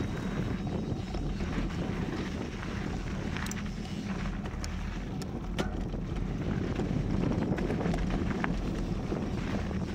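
Wind rushing over the camera microphone and the low rumble of a mountain bike rolling over a dirt trail, with a few sharp clicks and rattles from the bike and trail scattered through it.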